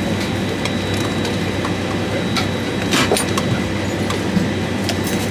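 Steady hum and rush of a parked airliner's cabin and galley air, with a few light clicks of plastic cups being set down on the galley counter.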